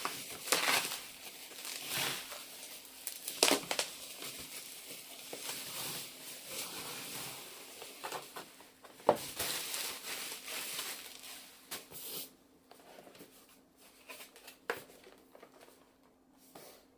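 Packaging crinkling and rustling as a boxed keyboard is unwrapped, with a few sharp clicks and knocks. It goes quieter for the last few seconds.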